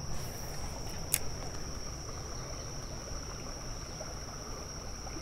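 Steady high insect drone over a low rumble of flowing creek water, with one sharp click about a second in as the spinning reel's bail is closed after a cast.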